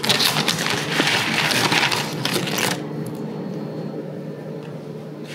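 A plastic bag crinkling and rustling as a hand rummages in it and pulls out a bundle of fresh noodles, for about two and a half seconds, then stopping; a low steady hum runs underneath.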